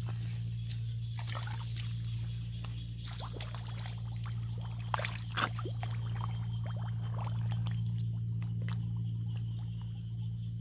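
Wet mud and shallow water squelching and splashing as mud is dug and scooped out by hand, with a few sharp splashes about five seconds in, over a steady low hum.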